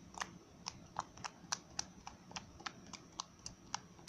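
Homemade slime being squeezed and worked in the hand, giving a run of short sharp clicks and pops, about four a second.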